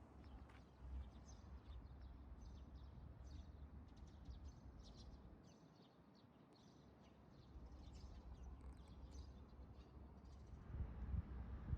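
Faint chirping of small birds, many short chirps in a row, over a low steady rumble that grows louder near the end.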